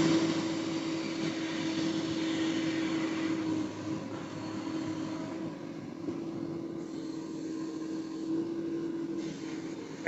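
JCB 3DX Xtra backhoe loader's diesel engine running steadily at idle, easing a little after about three and a half seconds.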